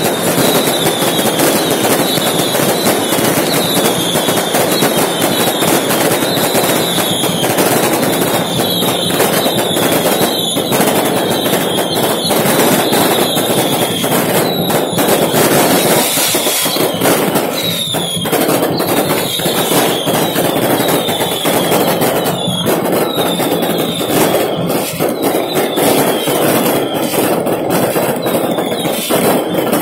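Fireworks and firecrackers going off without a break: dense crackling and sharp bangs, with short high whistles falling in pitch about once a second.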